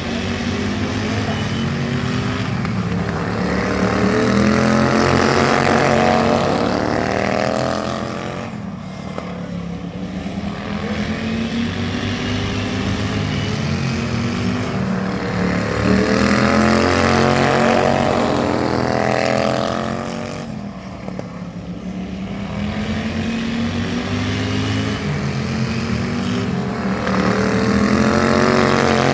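Several outlaw-class racing lawn mowers running flat out around a dirt oval. Their engine note swells and bends in pitch as the pack passes close, then fades, three times, about every eleven to twelve seconds.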